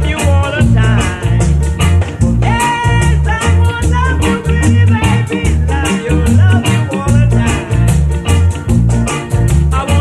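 Early skinhead-era reggae song: a voice singing over a prominent bouncing bass line and a steady, quick high percussion beat.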